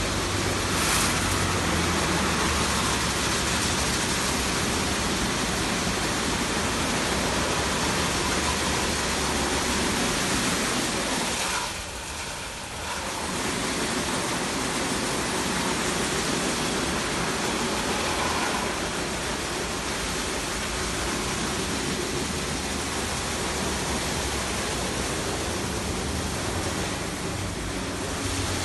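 Automatic gantry car wash running over a car: a steady rush of water spray. The spray briefly drops away about twelve seconds in, then starts again.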